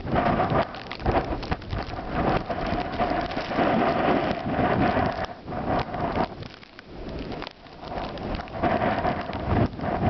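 Strong snowstorm wind buffeting the camera microphone in gusts, rising and falling and easing briefly about six to seven seconds in.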